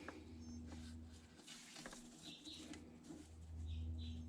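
Faint scratching and light clicks of hands working a rubber serpentine belt onto the engine's pulleys, with a low rumble that comes and goes.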